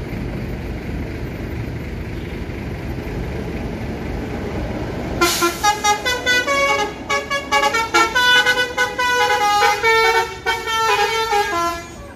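Steady low rumble of a bus engine, then about five seconds in a bus's multi-note musical horn plays a quick tune of short stepped notes for about seven seconds.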